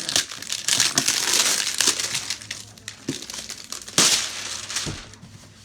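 Packaging wrap being pulled open and crumpled by hand: dense crinkling and crackling, with a sharp loud rustle about four seconds in, dying down near the end.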